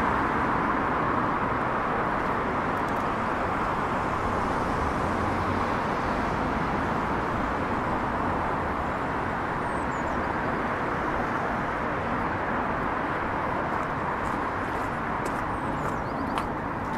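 Steady city road traffic: an even rush of tyres and engines that slowly eases off.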